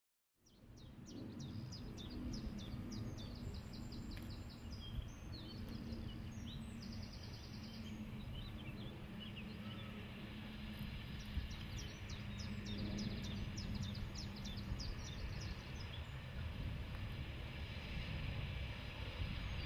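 Birds chirping and singing over a low rumble from S&D 7F 2-8-0 steam locomotive 53808 and its train, drawing in slowly; the rumble grows a little louder near the end.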